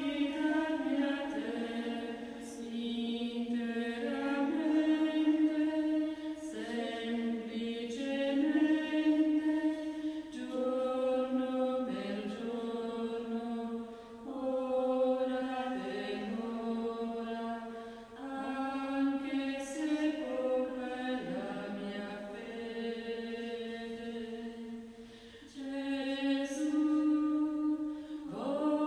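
Choir singing a slow sacred chant: long held notes that move in steps, with short pauses between phrases.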